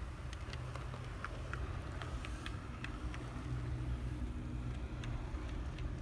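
Tenshodo HO-scale brass EF58 electric locomotive running along the track, its Copal motor and TA gear drive giving a steady low hum. Scattered light clicks come from the wheels on the track.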